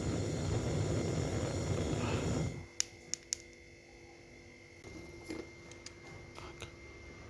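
Gas brazing torch burning with a steady rush that cuts off abruptly about two and a half seconds in, followed by three sharp metallic clicks.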